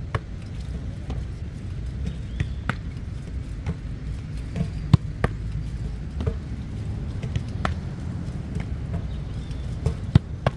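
Dull thuds of a medicine ball being caught in goalkeeper gloves and pushed back, about one every two and a half seconds, the loudest about halfway through and near the end. A steady low rumble runs underneath.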